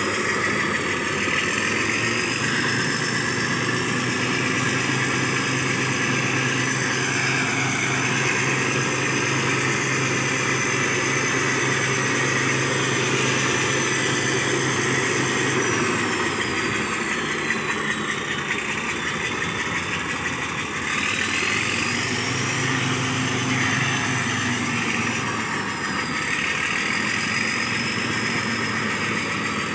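Motor grader's diesel engine running under way, with a high turbo whistle above the engine note. About halfway through the engine eases off and the whistle falls; a few seconds later both rise again.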